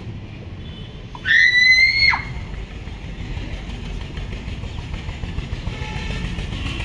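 A woman's acted scream, shrill and held for about a second, starting about a second in. A low steady background rumble follows.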